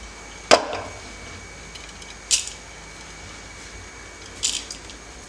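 Loose uncooked rice grains swept by hand across a wooden board and dropped into an aluminium pot: three short rattles, the first and loudest about half a second in, the others at about two and four and a half seconds.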